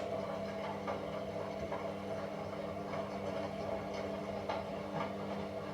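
Washing machine running: a steady hum with a few faint clicks.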